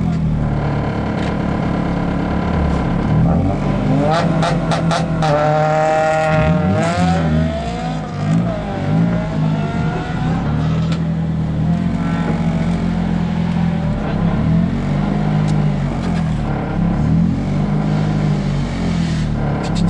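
Rally-prepared Honda Civic's engine idling, heard from inside the cabin, with the revs rising and falling a few times around the middle as the throttle is blipped. A few sharp clicks come just before the revving.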